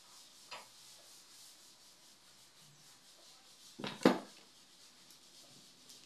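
Hands fitting a metal lockset mounting plate against a wooden door: faint rubbing and a small click, then a sharp double knock just before four seconds in.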